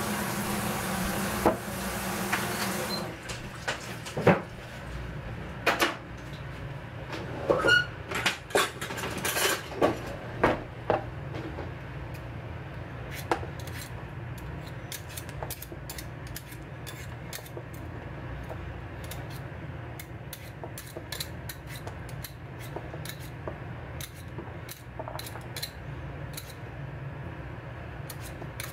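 Running water that stops about three seconds in, then several knocks and clatters on a cutting board. After that comes a steady run of short scraping strokes, about two a second, as potatoes are peeled over the board.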